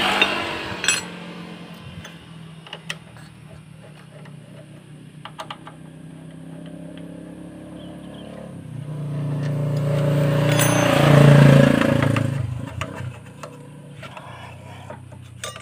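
Scattered metal clicks and clinks of a hand tool working the caliper bolts of a motorcycle's front disc brake. About halfway through, an engine swells up over a few seconds and fades away; this is the loudest sound.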